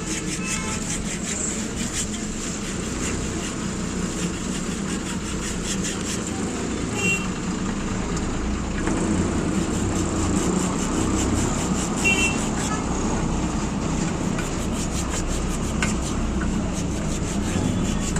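Steady street traffic noise with passing vehicles, and short horn toots twice, about a third and two-thirds of the way through.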